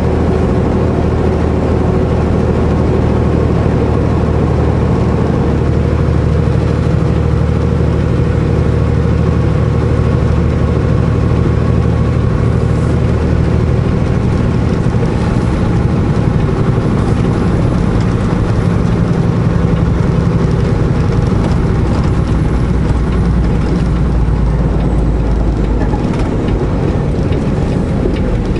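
Semi truck's diesel engine running steadily, a low hum with an even note that shifts slightly near the end.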